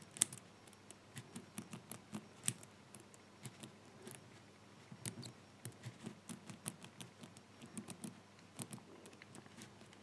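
Faint, irregular clicking of a LOCKWOOD combination padlock's number wheels being turned by hand, one number at a time, while the wheels are tried for their true gates to decode the combination.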